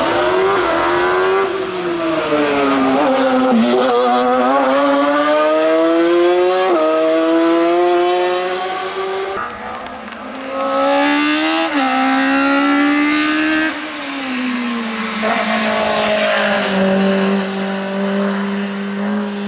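Hill-climb race car engines accelerating hard up through the gears. The pitch climbs and drops sharply at each upshift, several times in quick succession. After a short lull about ten seconds in, a second car accelerates the same way and ends on a steadier high note.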